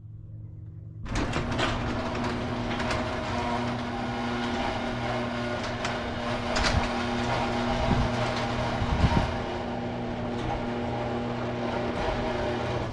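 Car engine running steadily, coming in loud about a second in, with a constant low drone and some scattered knocks.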